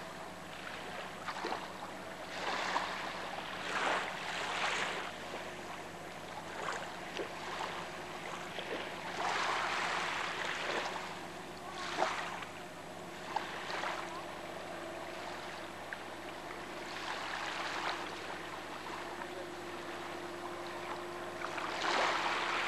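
Small waves washing on the shore in soft rushes that swell and fade every second or two, over a faint steady low hum.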